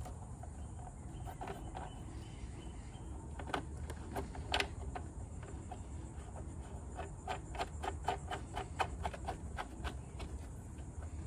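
Light clicks and taps of electrical wires and copper crimp terminals being handled against a plastic control-box enclosure, scattered at first and then a quick run of clicks in the second half. A steady high insect drone sounds throughout.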